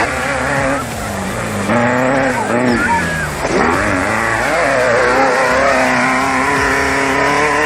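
Off-road race vehicle engines revving, several engine pitches overlapping and rising and falling as the vehicles accelerate and ease off.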